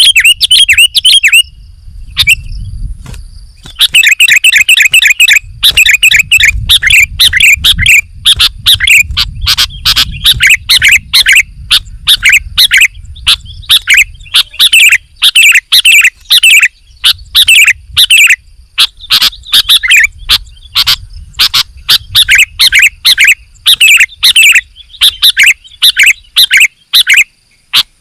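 Sooty-headed bulbul (kutilang) singing without letup: loud, rapid strings of chirping notes, with one short pause about two seconds in.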